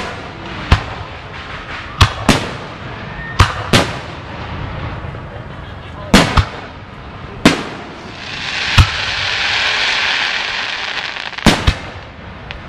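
Aerial fireworks shells bursting: about a dozen sharp bangs, often in pairs a fraction of a second apart. A steady hiss rises and falls for about three seconds in the second half.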